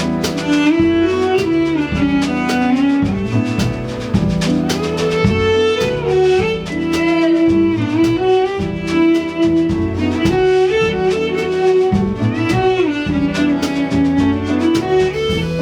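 Instrumental music: a melody of changing notes over a moving bass line, with frequent light percussion hits throughout.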